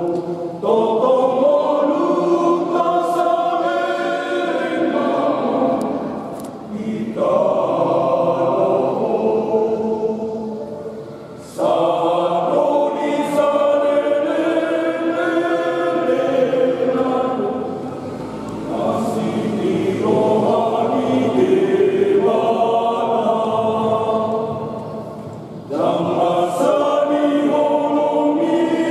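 Men's choir singing a Christian hymn together, in long phrases with short pauses between them.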